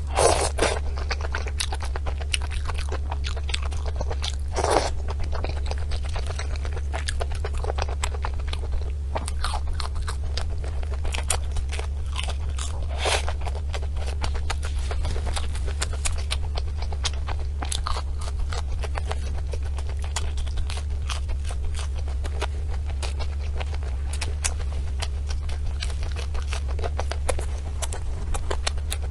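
Close-miked chewing and crunching of desserts: a dense, irregular run of crisp crackles and clicks with a few louder bites, over a steady low hum.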